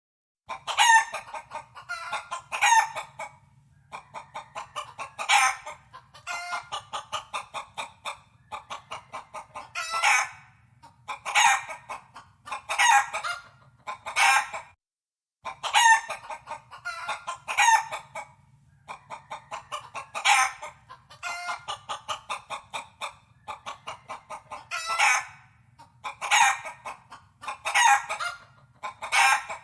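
A hen clucking and cackling: runs of quick, short clucks broken by louder, drawn-out calls. After a brief pause about halfway, the same sequence plays again.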